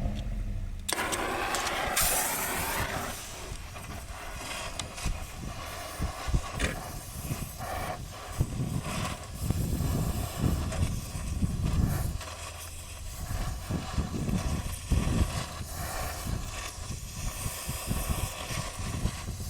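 Gas torch hissing as it heats a brake line for welding, with a strong hiss about a second in lasting roughly two seconds, then uneven low rumbling and knocks.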